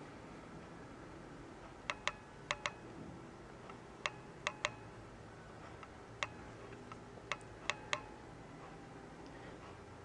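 A cat's claws clicking and snagging on looped carpet as it moves and swats: about a dozen sharp ticks at irregular intervals, some single and some in quick pairs or threes.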